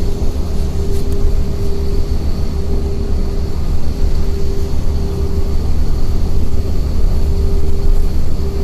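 City bus interior at speed: a steady low engine drone and road rumble, with a steady humming tone that fades in and out.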